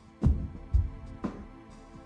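Background music with a steady beat: deep drum hits about twice a second over soft sustained tones.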